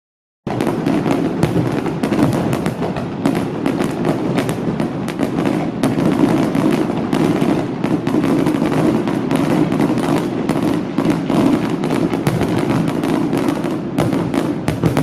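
A fireworks display going off: many rapid bangs and crackles over a continuous rumble, starting about half a second in.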